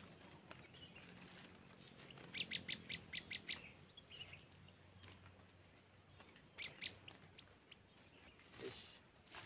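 Small songbird chirping: a quick run of about seven sharp, high chirps a couple of seconds in, then a few fainter chirps later on.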